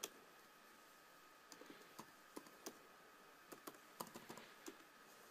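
Faint keystrokes on a computer keyboard, typed in short irregular runs, over a faint steady whine.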